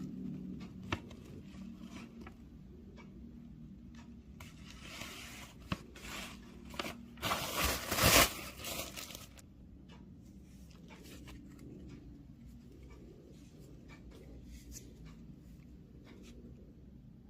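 Packaging being handled and torn open: scattered clicks and knocks, then a stretch of rustling and tearing that is loudest about halfway through, before quieter handling.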